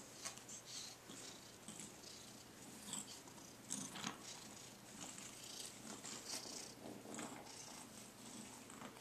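Faint, irregular scuffling and rustling as a kitten wrestles and bats a small plush toy on carpet, with a few soft taps.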